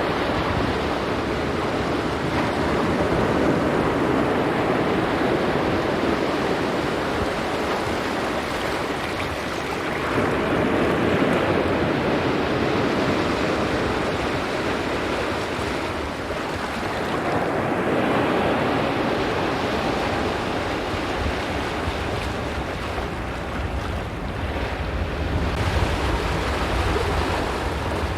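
Ocean surf on a rocky shore: a continuous rush of waves that swells and eases several times, with wind rumbling on the microphone near the end.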